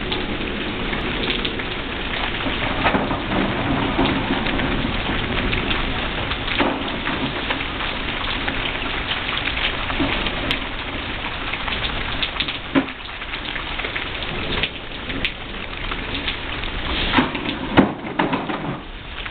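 Steady rain hiss, with a few brief thumps from a trampoline being jumped on.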